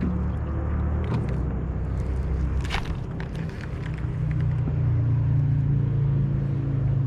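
An engine running steadily, a low hum whose pitch shifts a little about three seconds in and again near five seconds, with a few faint clicks over it.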